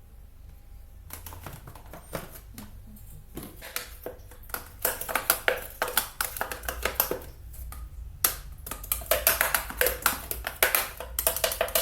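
Cat batting and clawing at a piece of plastic: an irregular run of crackling taps and clicks, sparse at first, then dense and louder from about four seconds in, with a brief pause near eight seconds.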